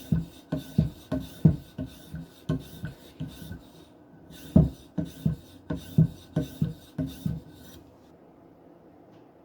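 Knife blade being drawn over a hard polymer strop loaded with diamond abrasive emulsion: even, rhythmic scraping strokes about three a second, with a brief pause about four seconds in. The strokes stop about three-quarters of the way through.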